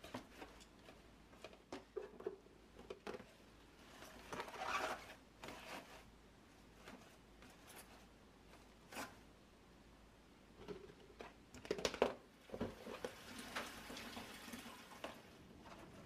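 Lettuce leaves rustling and crinkling as hands lift and pack them into plastic storage containers, with light clicks and taps of the plastic. The handling comes in irregular bursts, loudest about four seconds in and again about twelve seconds in.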